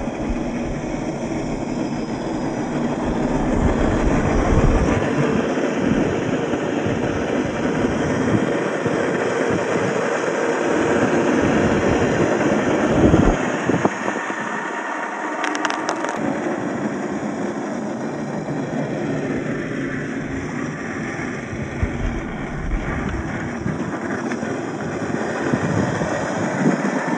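Electric motor and gearbox of an MST CFX RC crawler whirring, with its tyres scrabbling over the ground, as the scale truck drives off-road.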